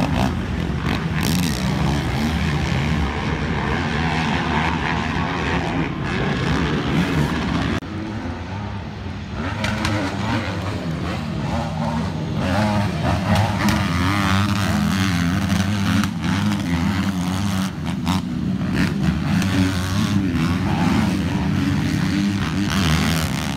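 Several racing ATV engines revving hard, their pitch rising and falling with throttle and gear changes. The sound dips briefly about eight seconds in, then picks up again.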